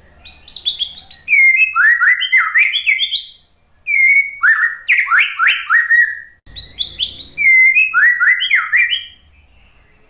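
White-rumped shama singing: three loud phrases of rapid, sliding whistled notes, each lasting two to three seconds, with short breaks between them.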